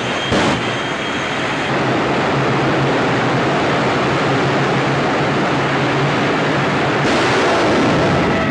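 A jet funny car's turbojet engine running at high power: a loud, steady rush of noise with a sharp bang about half a second in, turning brighter and harsher about seven seconds in.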